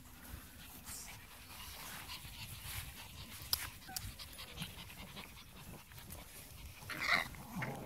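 Griffon puppies panting and scuffling in the grass as they play-fight, with a short yelp about seven seconds in.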